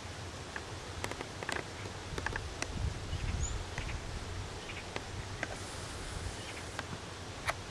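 Open-air countryside ambience: a steady hiss and low rumble with scattered faint clicks and ticks, and one short high chirp about three and a half seconds in.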